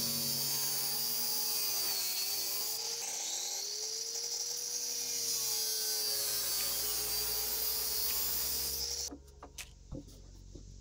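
Angle grinder with an abrasive cut-off disc cutting through metal held in a vise: a steady high grinding hiss over the motor's whine, which sags in pitch and recovers as the disc is pressed into the cut. It stops about nine seconds in, leaving a few light clicks.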